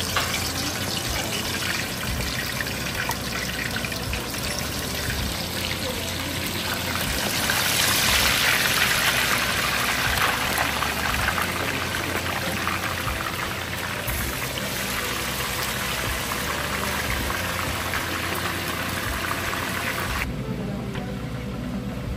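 Chicken pieces deep-frying in a pot of hot oil: a steady sizzle and crackle that grows louder about eight seconds in, as more pieces go into the oil. The sizzle cuts off about twenty seconds in.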